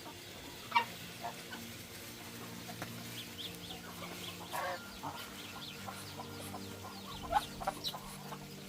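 Chickens clucking in short, scattered calls over a steady low hum.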